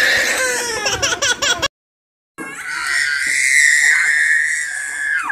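A baby screaming and crying in high, wavering cries; the sound cuts out completely for a moment, then one long, high-pitched scream is held steady for nearly three seconds.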